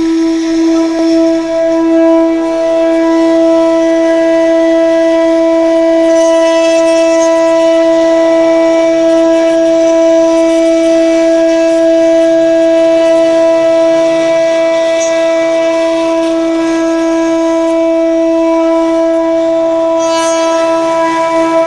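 CNC router spindle running at a steady high-pitched whine while it engraves a door, with faint scratchy cutting noise over it.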